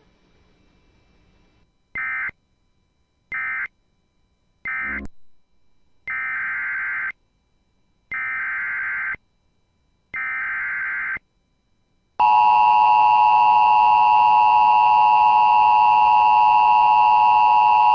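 Emergency Alert System data bursts: three short buzzy bursts, then three longer ones of about a second each, the EAS end-of-message code and the SAME header of the next alert. They are followed from about 12 seconds in by the loud, steady EAS attention signal tone.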